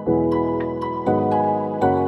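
Background music: soft, gentle chords that change about once a second, with light ticking percussion.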